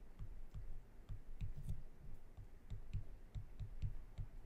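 A stylus tapping and clicking on a tablet as letters are handwritten: a faint, irregular run of light taps, about three or four a second.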